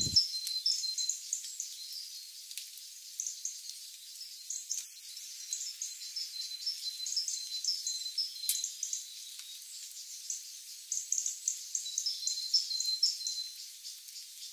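Outdoor ambience of rapid, high-pitched chirping in short runs over a faint steady hiss, with nothing low in pitch.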